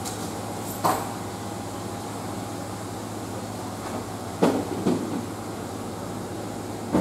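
Steady mechanical hum of room tone with a faint thin high tone, broken by a few short knocks: one about a second in, two close together past the middle, and one at the end.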